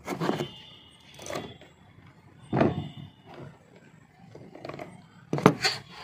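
Handling knocks and clicks of an angle grinder as a cloth disc is clamped on and its flange nut tightened with a pin spanner. A handful of short separate knocks, the sharpest about five and a half seconds in.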